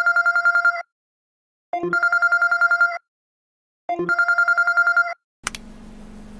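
Phone ringtone in the style of an electronic telephone trill: three rapid warbling rings, each a little over a second long and about a second apart. Each ring opens with a brief low blip. Near the end comes a short, quieter stretch of hiss with a low hum.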